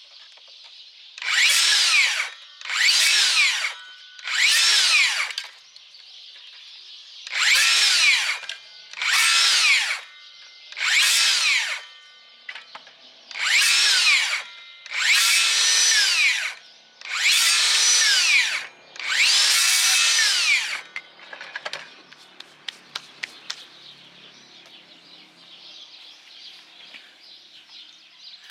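DeWalt DCS578 60V FlexVolt brushless circular saw cutting thin tree branches in ten short bursts. Each time the motor whine climbs as it spins up and drops quickly as the electric brake stops the blade. Near the end come faint clicks and knocks as the saw and branches are handled.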